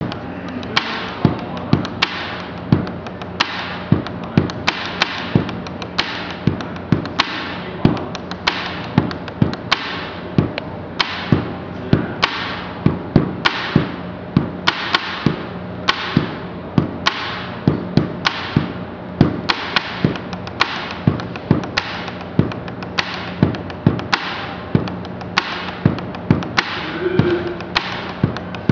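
A pen tapped rhythmically on a wooden tabletop: a steady beat of sharp knocks, a strong one about every three-quarters of a second with lighter taps between.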